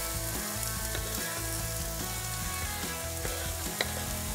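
Diced leek, carrot and celery sizzling steadily as they are tipped into hot olive oil in a frying pan, with one sharp tap near the end.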